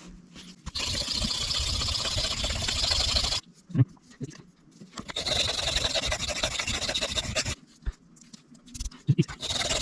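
A steel knife blade being ground on a sharpening stone: two long runs of rapid scraping strokes with a pause between them, raising a burr on the edge.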